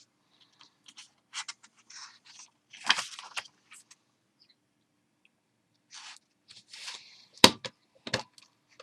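Hands handling a Phomemo M03 thermal printer and its paper: scattered rustles and scrapes of plastic and paper, then two sharp clicks near the end.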